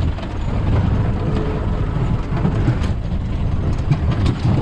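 A jeep running on a rough mud track, heard from inside the cabin as a steady low rumble of engine and road, with knocks and rattles from the bumpy ride.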